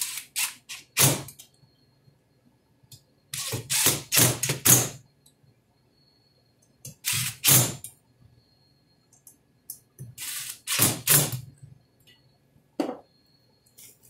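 Cordless drill running screws into an Espar diesel heater's aluminium housing, the motor whirring in short runs of about a second, five or six times.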